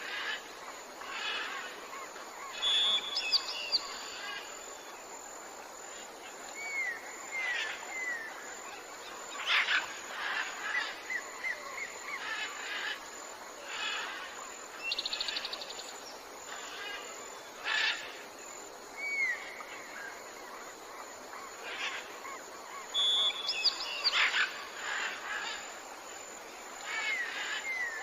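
Several birds calling and singing: short chirps, trills and down-slurred whistles coming every second or two over a steady background hiss.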